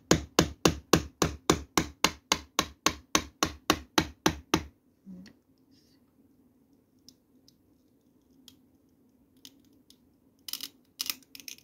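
Wooden mallet striking a wood chisel in quick, even blows, about four a second, driving it into a board to cut a recess. The blows stop about four and a half seconds in. Near the end there is a short cluster of knocks and scraping as the chisel works the wood.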